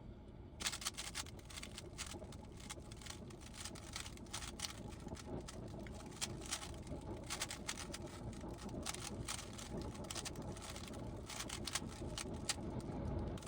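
GAN 15 speed cube being handled, with rapid, irregular plastic clicks and clacks several times a second over a low background rumble.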